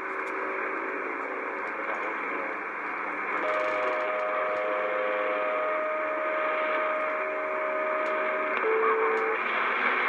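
CB radio receiver hissing with static on an open channel, with steady whistling tones coming and going over the hiss: one long tone from about three and a half seconds in to eight and a half, then a short lower tone just after.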